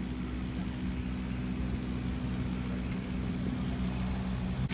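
Steady low hum of an idling train engine, running evenly with no change.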